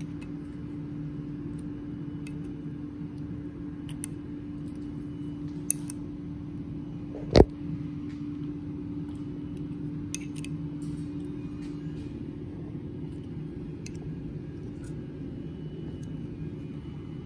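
Light metallic clicks of a hex key working socket cap screws on a gearbox top plate, with one sharp metal knock about seven seconds in, over a steady low machine hum.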